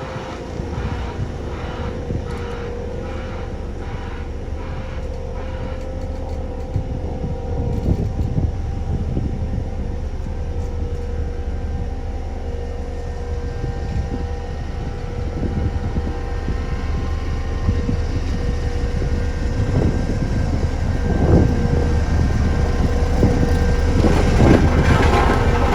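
Diesel engine of a heavy construction machine running steadily with a low rumble, growing louder toward the end.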